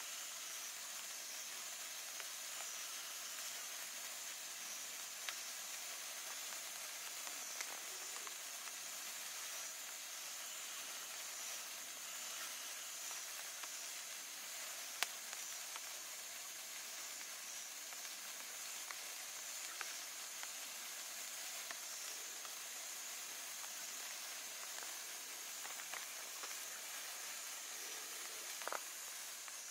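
Monkey Mania Magic Wand hand-held iron sparkler burning with a steady high hiss, with a sharp pop now and then, the loudest about halfway through.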